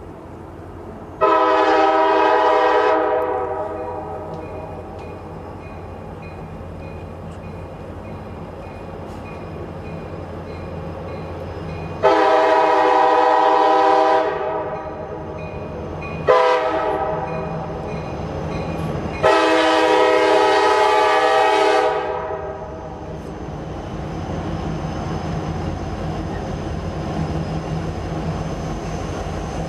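CSX SD70MAC locomotive's air horn sounding the grade-crossing signal: two long blasts, one short, then a final long blast, each a steady multi-tone chord. Underneath, a steady low drone from the locomotive working in dynamic braking as it holds the train back downhill.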